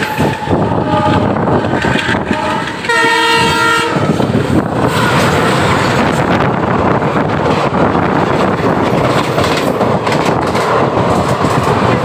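Diesel locomotive horn of the WDG3A-hauled express sounding: fainter steady notes first, then a loud chord-like blast for about a second around three seconds in as the locomotives pass close by. After the horn, the coaches rush past at speed right alongside, giving a loud continuous roar of wheels and rail clatter with wind.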